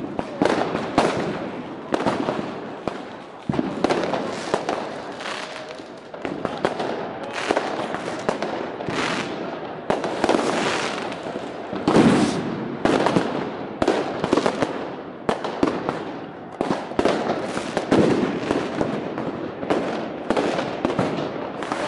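A dense, unbroken barrage of consumer fireworks and firecrackers going off all around, sharp bangs and cracks overlapping one another. The loudest bangs come about halfway through and again a few seconds later.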